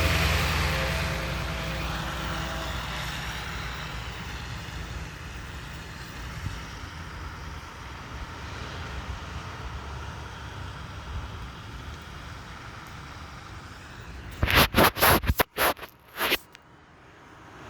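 Heavy rain hissing steadily on the open air, with a low rumble in the first few seconds that fades away. Near the end, a quick run of loud knocks and thumps right at the microphone.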